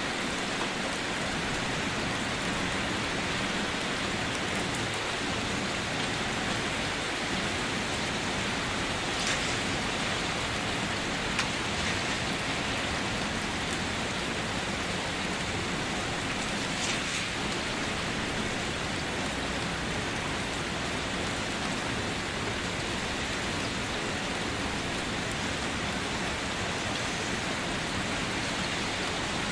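Steady rain falling and pattering on a surface, an even hiss with a few brighter drop ticks now and then.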